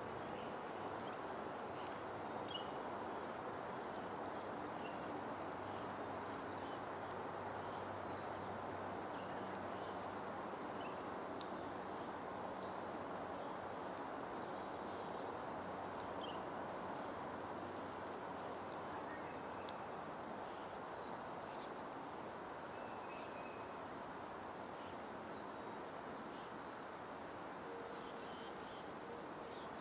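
Insects trilling in a steady, high-pitched chorus, one trill pausing briefly every second or two, over a soft steady hiss.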